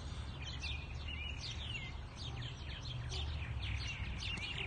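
A colony of purple martins chirping and warbling: many short, quick calls overlapping without a break. A steady low rumble sits underneath.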